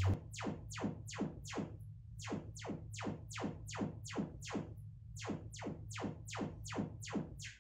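Sonos Era 300 smart speaker playing its Trueplay room-tuning test signal, a rapid, even series of falling sweeps at about three a second, while its built-in microphone measures the room for calibration.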